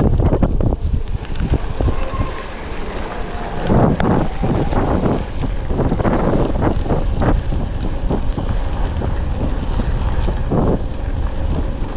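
Wind buffeting a mountain bike rider's microphone while the bike rolls over a dirt trail, with frequent knocks and rattles from the bike over rough ground.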